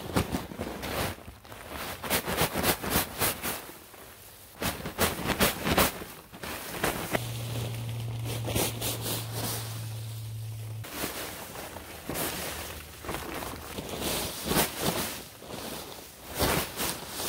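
Irregular crunching footsteps on dry leaves and the crackling rustle of a full paper leaf bag being carried. A steady low hum sounds for about four seconds midway through.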